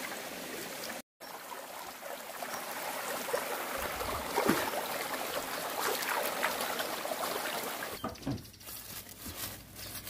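Shallow mountain stream trickling over rocks, with hands splashing and swishing in the water as wild greens are rinsed. The sound drops out for a moment about a second in, and about eight seconds in it gives way to a quieter outdoor stretch with faint rustling.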